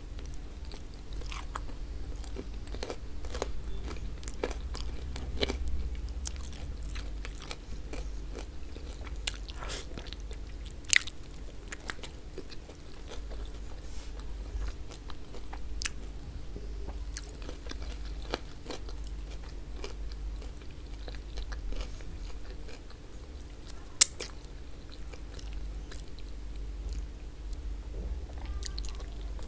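Close-miked chewing and biting of stewed oxtail meat in tomato sauce, with wet mouth sounds and many short sharp clicks. Two clicks stand out as louder, one about a third of the way in and one near the end. A low steady hum sits underneath.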